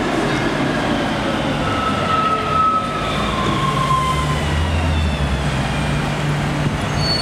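A Caen pneumatic-tyred guided tram (Bombardier TVR) pulling into a stop: its electric drive whines in several tones that fall in pitch as it slows, over a steady low hum.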